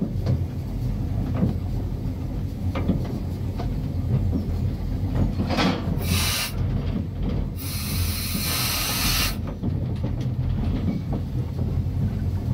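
Andrew Barclay 0-6-0 saddle tank steam locomotive heard from its footplate while under way: a steady low rumble with clicks of the wheels over the rail joints. About six seconds in there is a short burst of loud steam hiss, then a longer one of nearly two seconds.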